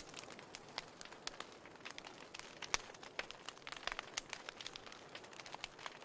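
Wood fire crackling in an open fireplace: irregular sharp snaps and pops over a soft hiss, with one louder pop near the middle.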